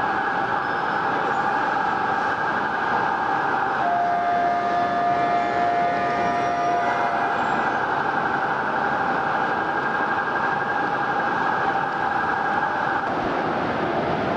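Steady city street traffic noise, a continuous loud hum from passing cars and taxis. About four seconds in, a single pitched tone is held for about three seconds and then stops.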